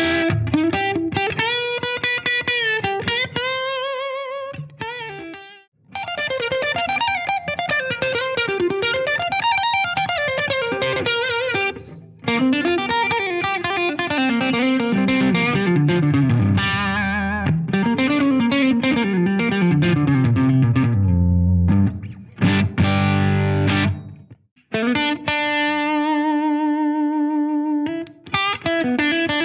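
Gibson electric guitar played through an amp as a lead solo. It opens with bent notes, then plays fast runs of notes climbing up and down, and ends on a long held note with vibrato.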